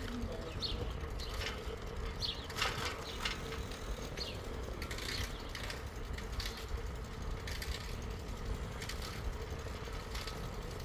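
Bicycle on the move along a paved path: a low rumble of tyres and wind, with irregular clicks and rattles from the bike and a faint steady hum.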